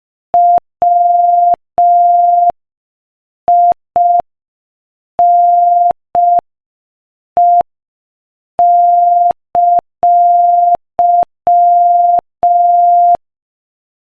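Morse code sent at 5 words per minute as a single steady beep tone, keyed on and off in short dits and longer dahs with silent gaps between letters.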